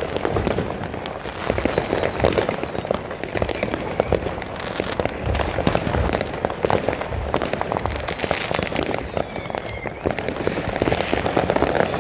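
Many fireworks and firecrackers going off all around in quick succession: a dense, unbroken run of bangs, pops and crackles.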